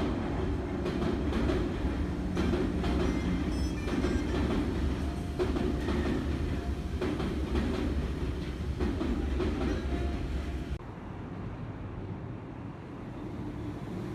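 Train running on rails, with a steady low rumble and the wheels clacking over rail joints. About eleven seconds in it cuts off suddenly to quieter, steadier noise.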